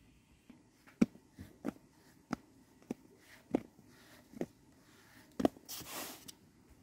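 Light, irregular taps and knocks as hands pinch pieces off a sheet of dough on a wooden board and drop them onto a floured aluminium tray, about eight in all, with a brief rustle near the end.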